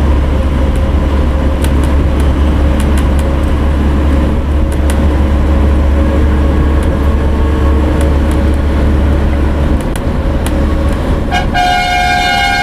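Steady rumble of a bus running at speed, heard from inside the cabin. About eleven seconds in, a loud, steady-pitched horn blares for over a second.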